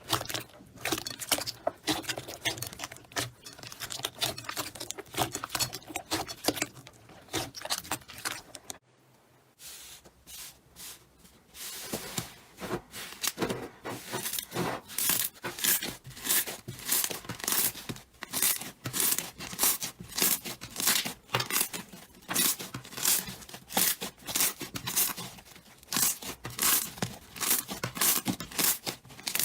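Slime being squeezed and worked by hand, giving dense crackling and sharp clicks; after a brief break about nine seconds in, it settles into a steady run of sharp pops at about two or three a second.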